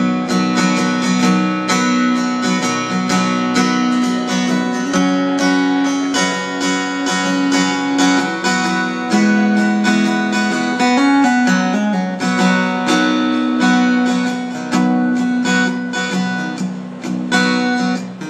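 Solo acoustic guitar strummed steadily through an instrumental break between verses of a country song, with no singing.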